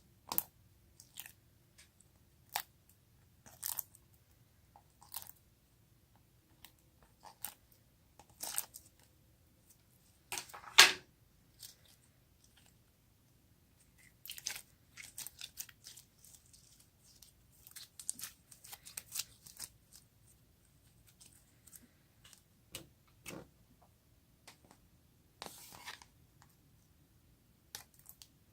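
Slime being squished and worked by hand, giving scattered sticky pops, crackles and clicks. One sharper snap comes about eleven seconds in, and a busier stretch of small crackles follows a few seconds later.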